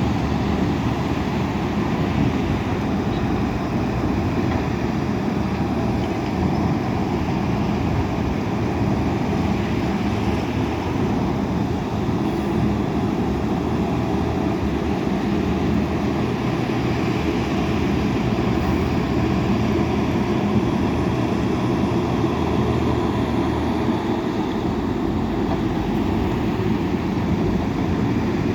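Heavy diesel earthmoving machinery running steadily, a continuous engine drone with no breaks.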